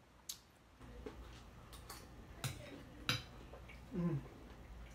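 Eating sounds: chewing and mouth noises with a few sharp clicks, and a short hummed "mm" with falling pitch about four seconds in.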